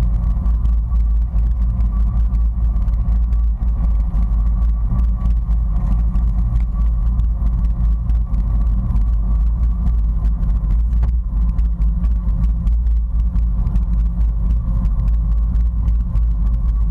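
Sea-Doo personal watercraft engine idling, a steady low rumble.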